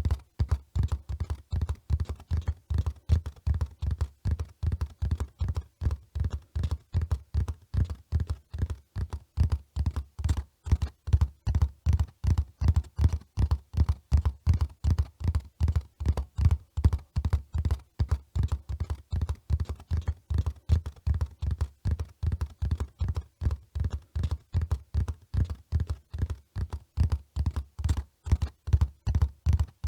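Horse hoofbeats at a run: a steady, rapid rhythm of low, dull thuds.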